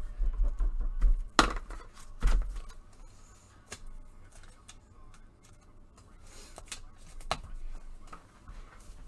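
Scattered knocks and clicks of things being handled on a desk, with low thumps in the first two seconds and two sharper knocks at about one and a half and two and a half seconds in; after that, only light, sparse clicks.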